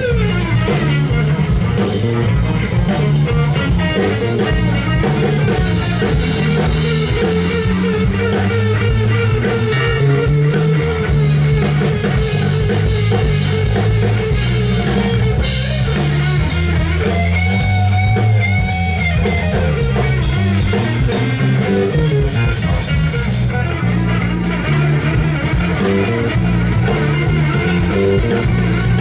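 Live amplified rock played by an electric guitar, electric bass and drum kit together, with no vocals.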